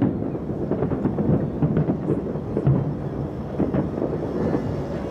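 Many distant fireworks going off at once, their bangs merging into a continuous rumble with irregular sharper pops through it.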